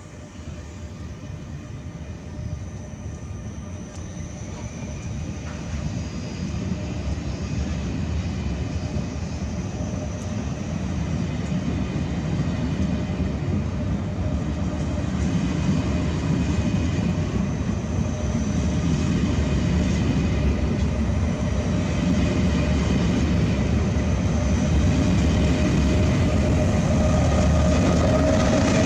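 A train approaching and growing steadily louder: a low rumble with several steady whining tones above it.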